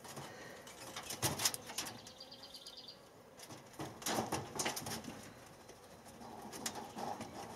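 Rabbits scuffling and shifting their feet on a wire-mesh cage floor and loose greens as the buck mounts the doe, heard as a few short, soft rustling bursts about a second in and again around four seconds in.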